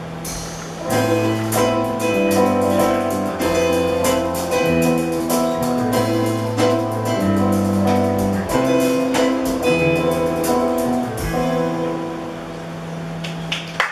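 Live band playing an instrumental passage: strummed acoustic guitar, electric bass and keyboard over drums, the bass note changing about once a second. It settles into one held chord near the end, and clapping starts just as it finishes.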